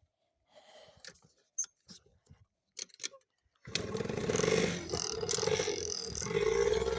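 ATV engine comes in suddenly a little past halfway and runs loudly, rising twice in revs. Before it there are only a few faint clicks.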